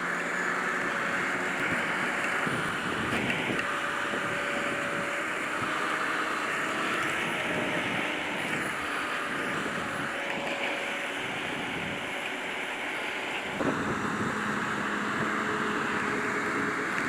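Grimme Varitron 270 potato harvester working: a steady machinery and engine drone whose tone shifts a few times, with a single sharp knock about 13 seconds in.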